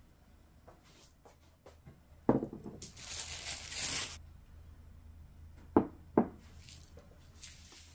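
Bowls set down on a wooden table: one knock, then about a second of rustling hiss, then two knocks close together a little before the end.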